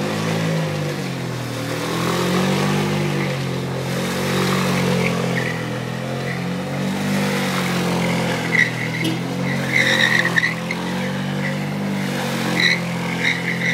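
Motorbike engine running as it is ridden slowly around, its pitch gently rising and falling. A few short high squeals come in over the engine in the second half.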